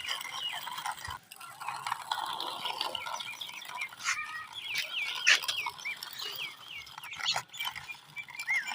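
Birds chirping in many short, quick calls, busiest in the middle, with a few sharp clicks in between.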